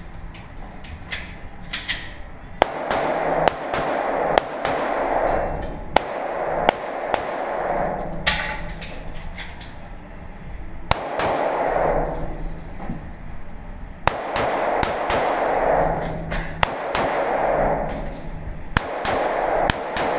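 MP-446 Viking 9 mm pistol firing in quick strings of shots, each shot followed by a long ringing echo, with short pauses between strings as the shooter moves through an IPSC course.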